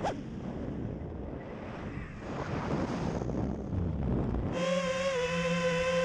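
Wind rushing over the onboard camera's microphone of an FPV quadcopter in fast flight, swelling about halfway through. A little past four and a half seconds in, a steady high whine of the quadcopter's electric motors starts.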